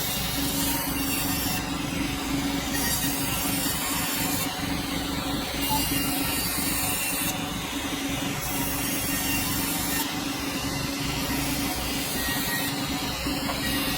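Sawmill blade cutting steadily through a dense hardwood log, a continuous sawing noise over a steady machine hum.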